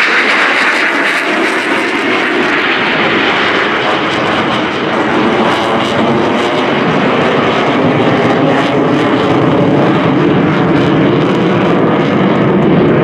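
Blue Angels F/A-18 Hornet's twin turbofan jet engines roaring steadily overhead, the roar turning deeper as the jet climbs away.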